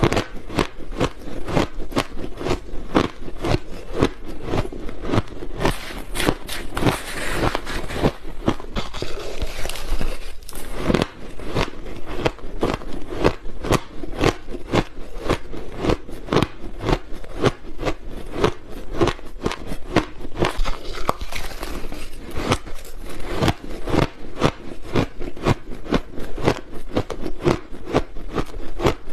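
Close-up biting and crunching of frozen blended powdered ice, a dense run of sharp, irregular crunches with no pause.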